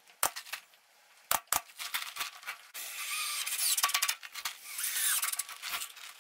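A few sharp clacks from a pneumatic nail gun fastening a spruce box beam, two of them close together about a second and a half in. From a little under three seconds in, a cordless drill/driver runs against the wood for about three seconds with a high, squealing whir.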